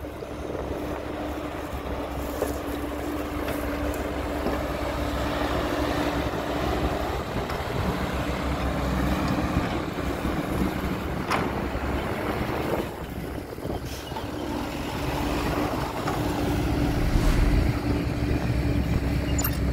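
Heavy diesel earthmoving machinery running steadily, its engine hum slowly growing louder, with a sharp clack about eleven seconds in.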